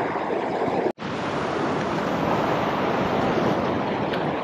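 Ocean surf washing and breaking over a rock ledge, with wind buffeting the microphone. The sound drops out for an instant about a second in.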